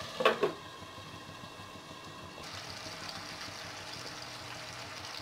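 A glass lid set onto a nonstick wok with a brief ringing clink just after the start, then a faint steady hiss from the pan of beef and onion masala cooking.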